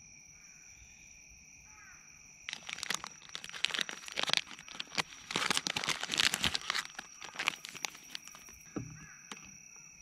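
Thin plastic film wrapper of a convenience-store gimbap roll crinkling and tearing as it is pulled open by hand, in a run of rustling strokes from about two and a half seconds in until near the end.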